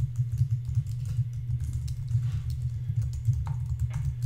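Typing on a computer keyboard: a quick, uneven run of keystrokes as a name and an email address are entered into a web form, over a steady low hum.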